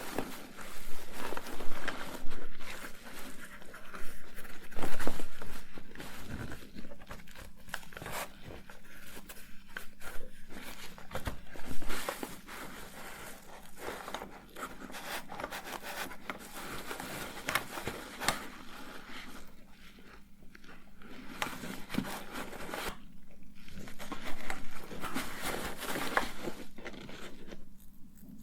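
Close-miked handling and rummaging sounds: crinkling and rustling of packaging with many small clicks and taps, as cosmetics and their cases are picked through. A faint steady hum runs underneath.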